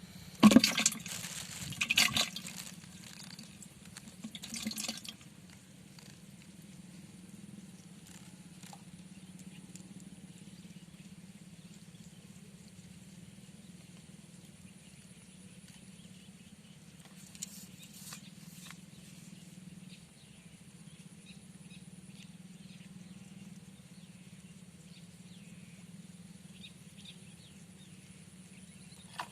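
Water splashing in three short bursts in the first few seconds, the first the loudest, then a steady faint background hum with a few small clicks.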